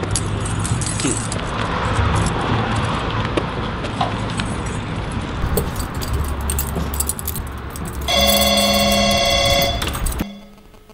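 Steady background noise, then, about eight seconds in, a phone starts ringing: a loud, steady electronic tone for about two seconds that then stops.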